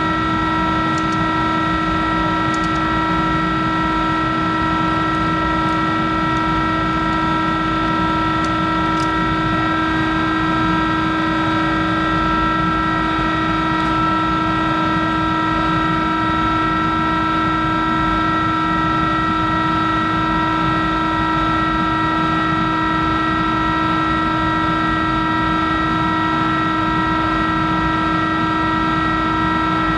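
Monarch 10EE lathe running: a steady machine whine of several fixed tones over a low hum, with a few faint ticks in the first ten seconds.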